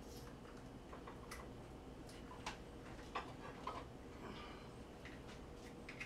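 Eggs being cracked against a bowl: scattered light clicks and taps of eggshell on the rim, a handful over a few seconds.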